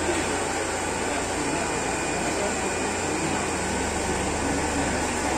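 Steady whirring hum of an aeration blower keeping a biofloc fish tank's water churning and bubbling, with a crowd chattering underneath.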